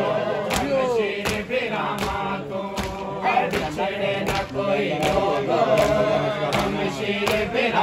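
Men chanting a Muharram noha together, their sung lament carried over a steady, evenly spaced beat of hands slapping on bare chests (matam).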